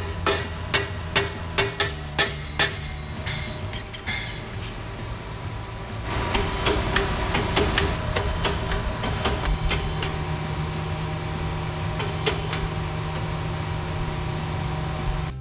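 Hammer blows on an aluminium bike frame to straighten it, correcting warp from welding: evenly spaced strikes about twice a second for the first few seconds, then a few lighter ones. After that come scattered clinks and knocks as the frame is handled on the jig table.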